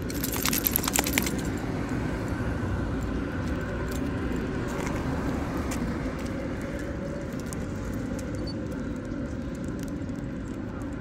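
A short metallic jingling in the first second or so, then a steady low rumble of street traffic.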